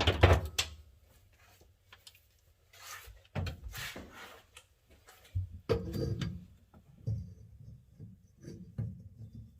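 Intermittent clunks and scrapes of wrenches and air-line fittings being handled and worked loose, in several short separate bouts with quiet gaps between.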